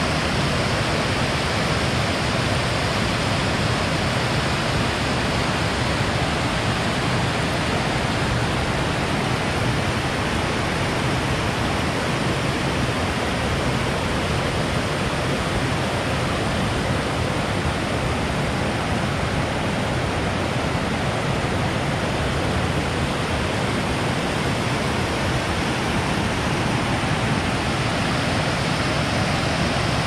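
Steady rush of a mountain creek cascading over low rock ledges and tumbling through rocky rapids.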